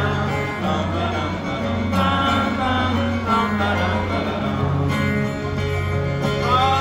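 Live acoustic bluegrass-style music: a banjo and an acoustic guitar playing together while two male voices sing together at one microphone.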